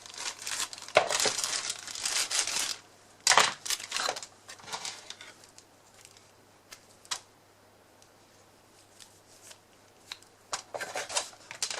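Packaging crinkling and rustling as the multimeter's box contents are handled, in several irregular bursts over the first five seconds and again near the end, with a quiet stretch between.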